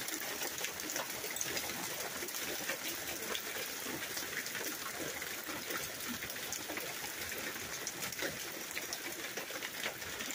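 Hail and rain coming down steadily onto a paved patio and plastic plant pots: an even hiss dotted with many small ticks of stones striking.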